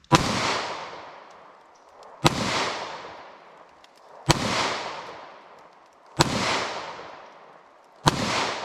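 .38 Special revolver fired five times, about two seconds apart, each shot followed by a long rolling echo.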